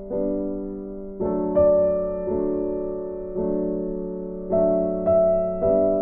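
Soft background piano music: slow chords and single notes struck every half second to a second and left to ring and fade.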